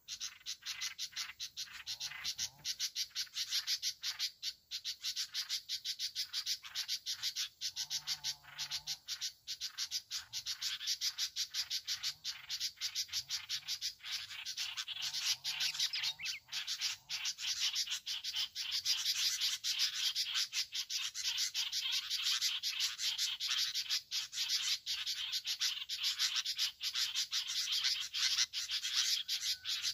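A dense, steady chorus of rapid ticking calls from small animals in the grassland, with a few faint bird calls over it.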